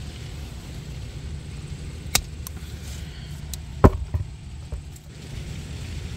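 A steady low rumble with several short, sharp clicks or snaps over it, the loudest about four seconds in.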